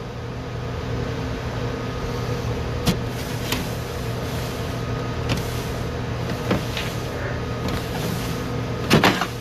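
Steady hum of a commercial kitchen's ventilation, from the exhaust hood fan, with a few short knocks and rubbing as a paper towel wipes down a stainless-steel counter, the sharpest knock near the end.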